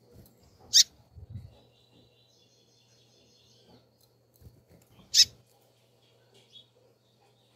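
Female double-collared seedeater (coleiro) giving sharp single peeping call notes, twice and about four seconds apart, with faint high twittering in between.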